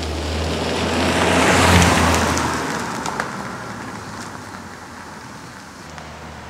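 A Ford Focus driving past on a dirt road: engine hum and tyre noise swell to a peak about two seconds in, then fade as the car drives away.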